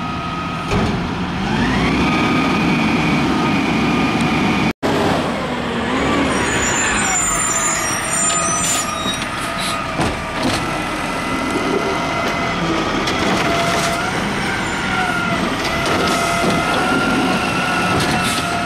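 Automated side-loading garbage truck running, its engine and hydraulics whining and rising in pitch as the arm grabs, lifts and dumps a wheeled trash cart, with a few knocks from the cart and arm.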